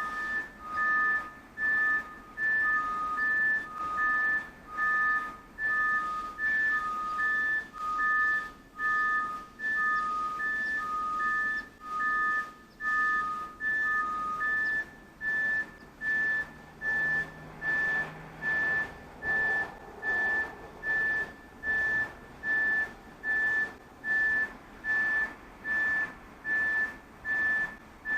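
School bus backup alarms beeping about once a second, two at different pitches out of step with each other. The lower-pitched one stops about halfway through, leaving the higher one beeping on.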